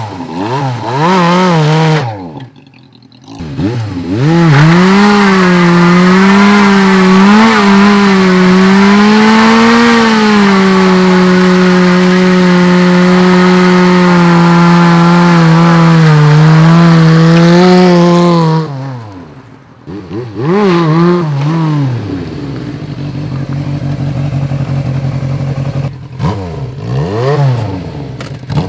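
Yamaha Seca II (XJ600) air-cooled inline-four motorcycle engine under way: revving up through the gears, dropping off briefly about two seconds in, then pulling up to a steady high note held for several seconds before easing off. Near the end it rises and falls again with the throttle.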